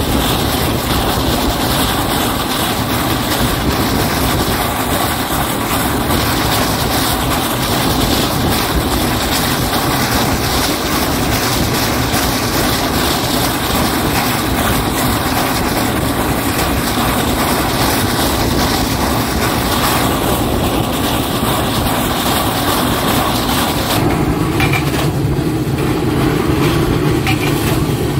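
Train running, a loud, steady noise. About four seconds before the end the sound changes and a lower, steady hum comes in.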